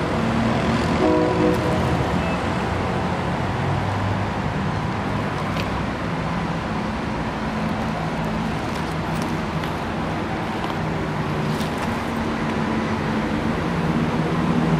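Diesel train engines running steadily as a freight train hauled by a Krupp diesel-hydraulic locomotive approaches, its engine growing louder near the end.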